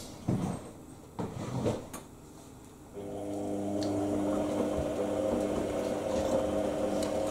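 The washing machine's drive motor starts turning the drum about three seconds in, a steady hum with a whine over it, after a few soft knocks and swishes from the drum. The owner finds the motor bearings somewhat rough.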